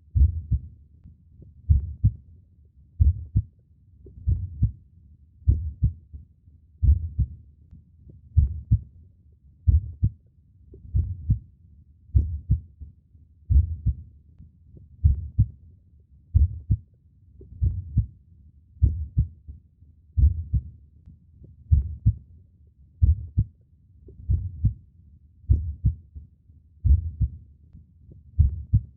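Human heartbeat: a slow, steady double thump (lub-dub), low-pitched, repeating about every one and a third seconds, roughly 45 beats a minute.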